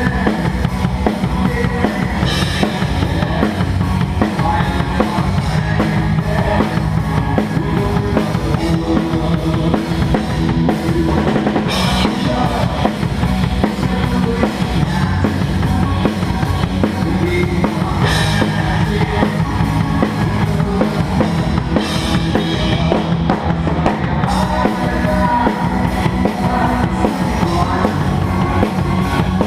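Drum kit played along to a rock backing track, with a steady, busy bass drum and snare beat and cymbal crashes every few seconds.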